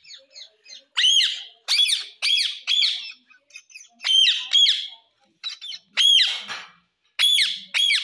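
Indian ringneck parakeet giving a series of short, shrill squawks, about nine, several in quick pairs with brief pauses between groups.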